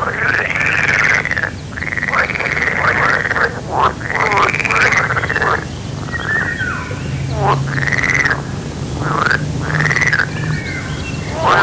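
Pond frogs croaking: a string of croaking calls, each about a second long, coming one after another every second or two. A low steady hum joins underneath in the second half.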